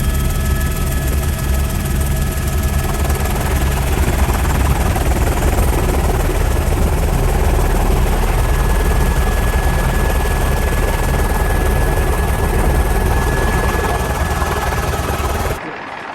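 Helicopter in flight, heard from the open-door cabin: loud, steady rotor and engine noise mixed with rushing air, with a few faint steady whines. Near the end the level drops suddenly to a much quieter background.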